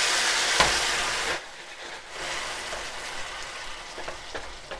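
Hot pasta water splashed into a hot stainless steel skillet of pasta, sizzling loudly; the pour stops about a second and a half in, leaving a quieter sizzle from the pan.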